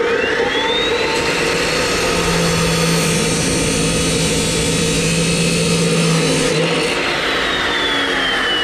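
Yato YT-82181 abrasive cut-off saw (metal chop saw) starting on its soft start, its whine rising slowly to full speed. The disc then cuts through square steel tube for several seconds, and near the end the whine falls as the motor winds down.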